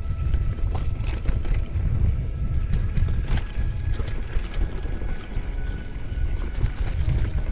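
Mountain bike descending a dirt trail: wind rushing on the microphone over a steady low rumble, with frequent sharp clicks and rattles from the bike over rough ground.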